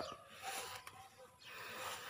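Faint rustling of tall grass and leaves as someone moves through them, in two soft swells of noise.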